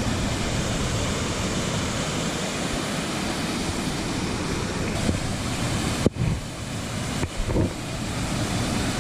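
Waterfall on the Bad River rushing steadily, a loud even roar of falling water, mixed with wind buffeting the microphone.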